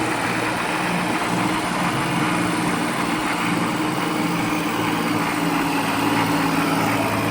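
Diesel farm tractor engine running at a steady speed.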